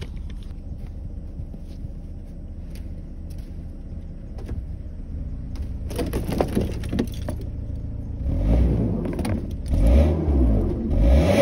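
2009 Mazda5's four-cylinder engine idling, then revved: once briefly about six seconds in, then several times from about eight seconds on, the pitch rising and falling with each push of the throttle. The car is stuck on an ice patch, its drive wheel spinning without grip as it tries to back out.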